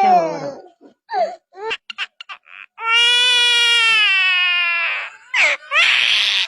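A bird giving a long, wailing cry much like a baby's, with short chirping notes before it and a harsh squawk near the end.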